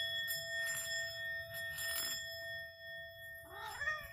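Singing bowls ringing on with a steady, layered tone after being struck, slowly fading. Near the end a cat gives a short meow.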